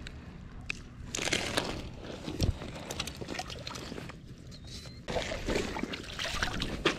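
Shallow water splashing and sloshing in two spells, a short one about a second in and a longer one from about five seconds in as hands are rinsed in the water, with a single thump between them.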